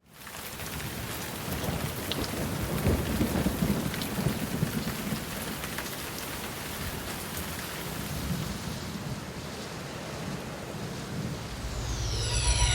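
Steady heavy rain with low rolling thunder rumbling, loudest a few seconds in. Near the end a swell of falling tones over a deep bass comes in.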